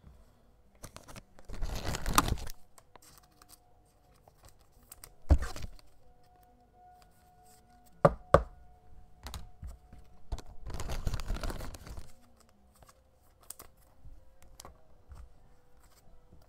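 Trading-card packaging being opened and handled: two bursts of tearing, crinkling wrapper, one about two seconds in and one about eleven seconds in. Between them come a thump and a pair of sharp clicks from hard plastic card cases being knocked and set down, with lighter taps throughout.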